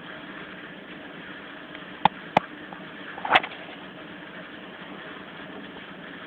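Yorkshire Terrier puppy growling low and steadily while tugging on a toy. Two sharp clicks come about two seconds in, and a brief louder sound a little after three seconds.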